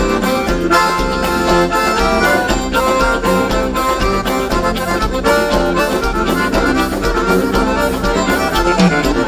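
Gaúcho dance band playing an instrumental passage, with the accordion leading over a fast, steady beat.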